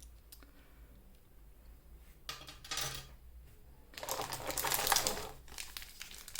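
Hands handling a trading-card collection box's cardboard and plastic packaging: faint clicks at first, a short burst of rustling about two seconds in, and a louder crinkling stretch from about four seconds in.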